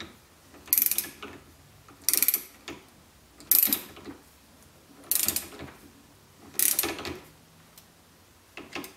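Ratchet head of a torque wrench clicking in short strokes as conrod cap nuts are tightened toward their 23 ft-lb torque. Five bursts of ratcheting come about every one and a half seconds, with a smaller one near the end.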